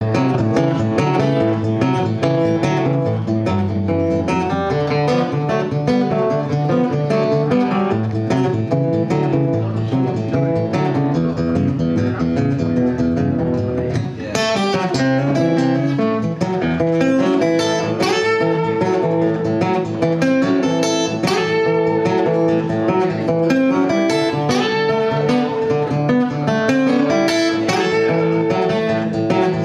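Two acoustic guitars playing together, strummed chords with picked notes. There is a short dip about halfway, after which the strumming turns brighter.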